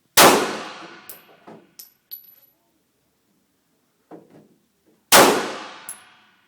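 Two gunshots about five seconds apart, each with a long echoing decay, followed by light metallic pings of spent brass casings landing.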